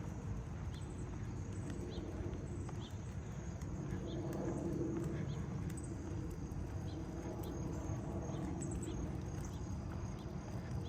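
Footsteps on pavement at an easy walking pace, about one step every 0.7 seconds, over a steady low outdoor hum and a thin, steady high tone.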